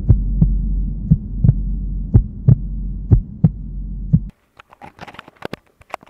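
Heartbeat sound effect: a low droning hum under heavy thumps in pairs, about one pair a second, that cuts off suddenly about four seconds in. A few faint scattered clicks follow.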